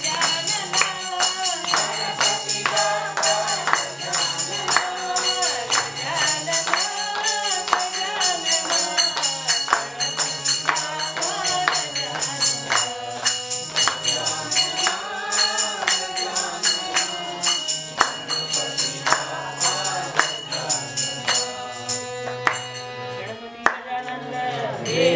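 A group singing a Hindu devotional bhajan together to a harmonium, with a steady beat of hand-clapping.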